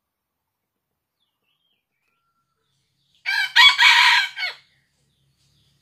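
A red junglefowl cock crows once, about three seconds in: a short crow of about a second and a half, a brief opening note followed by the longer main call.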